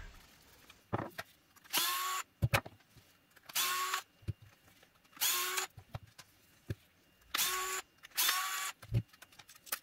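DeWalt cordless electric screwdriver running in five short spurts of about half a second each, backing screws out of the display's housing, with light clicks and knocks between the spurts.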